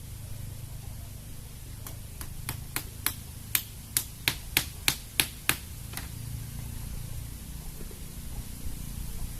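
Steady low wind rumble on the microphone, with a run of about a dozen sharp clicks, around three a second, from about two seconds in to six seconds in.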